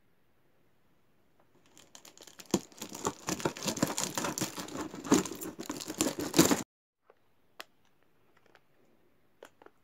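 Crinkling and rustling of packaging being handled for about five seconds, then it cuts off suddenly; a few light clicks follow.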